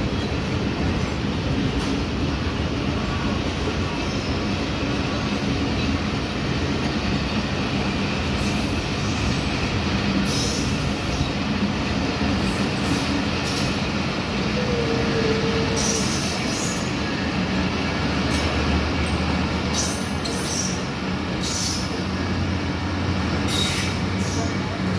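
Passenger coaches of a departing express train rolling past on the track, a steady rumble of wheels on rails with short high-pitched wheel squeals several times.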